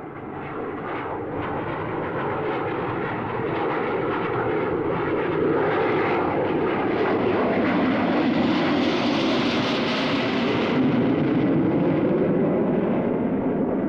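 Jet engine noise of a de Havilland Comet airliner in flight: a steady rushing roar that builds over the first few seconds, then holds, with its hiss brightest about two-thirds of the way through.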